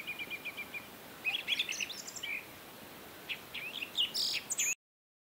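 Small birds singing: a rapid trill of short, evenly spaced high notes, then varied chirps and whistles. The sound cuts off to silence near the end.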